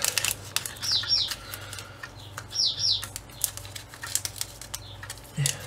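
Clear plastic bag crinkling and rustling as a kit's decal sheet is handled and slid back into it, with scattered crackles. A small bird chirps in quick pairs of high notes falling in pitch, a few times.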